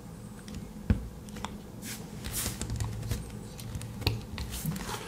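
Close handling of a Victorinox Soldier Swiss Army knife while its blade is worked with one hand: a sharp metallic click about a second in, then a few smaller clicks and rubbing of the knife in the hand, over a low steady hum.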